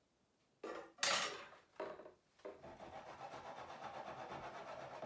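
A glass jar and its lid being handled: a couple of knocks and scrapes, the loudest about a second in, then about three seconds of steady, fine-grained rasping rub.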